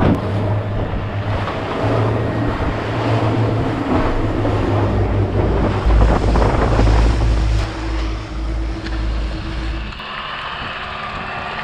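Boat powered by a Honda outboard running at speed across open sea, with water rushing past the hull and wind buffeting the microphone. About ten seconds in the rush and rumble drop away to a quieter steady noise.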